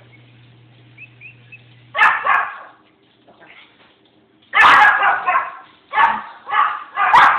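Newborn Pomeranian puppies squeaking and crying: a few faint squeaks, then a loud cry about two seconds in and a run of five or six loud cries in the second half.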